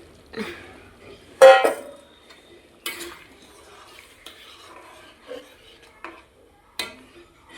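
Metal spoon stirring in a metal cooking pot, knocking and scraping against its sides. One loud ringing clang comes about one and a half seconds in, followed by lighter knocks.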